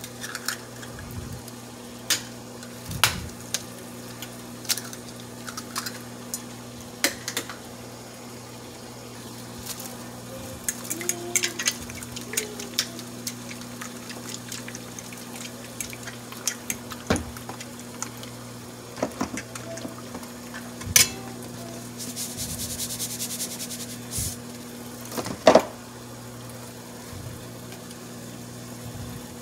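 Eggs being cracked and beaten with a metal fork on a ceramic plate: scattered taps and clicks of shell and fork against the plate, with a short run of rapid fork beating about three-quarters of the way through. A steady low hum runs underneath.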